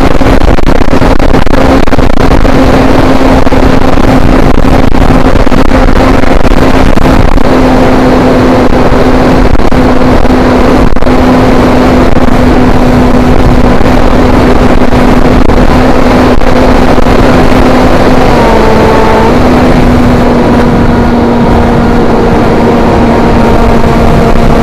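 A foam FPV model plane's motor and propeller running in flight, heard through its onboard camera: a steady drone under heavy wind rush on the microphone. The pitch dips briefly about eighteen seconds in, then holds steady again.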